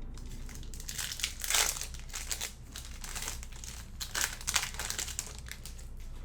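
Plastic wrapper of a trading-card pack crinkling as it is handled and torn open, in irregular crackly bursts, the loudest about one and a half seconds in and again past four seconds.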